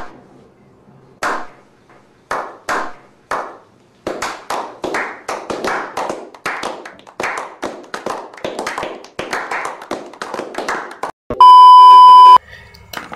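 A small group's slow clap: single claps spaced about a second apart that quicken into fast, steady clapping. Near the end the clapping is cut by about a second of a loud, steady test-tone beep, which stops abruptly.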